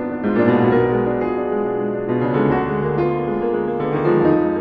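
Piano music: chords and a melody of held notes that overlap and ring on.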